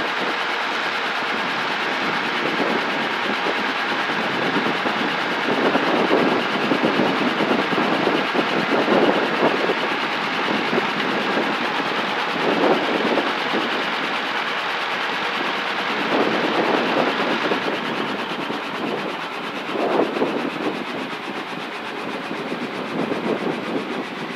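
Helicopter engine and rotor noise heard inside the cockpit: a steady noise with a swell every few seconds. The higher hiss fades about two-thirds of the way through, and the noise is a little quieter after that.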